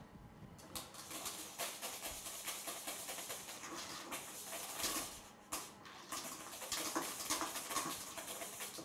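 Wire whisk stirring whipped cream into a thick egg-yolk cream in a stainless steel bowl: quick, irregular scraping and clicking against the metal, with a short pause about five and a half seconds in.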